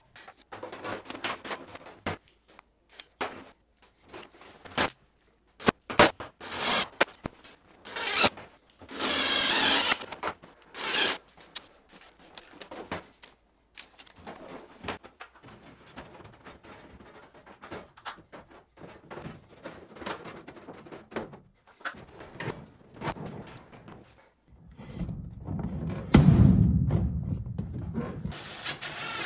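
Galvanized sheet-metal ductwork being handled and fitted together: scattered knocks, clicks and scrapes of thin metal. There is a denser scraping hiss of about a second around nine seconds in, and a louder low rubbing rumble near the end as a round elbow is pushed onto the duct.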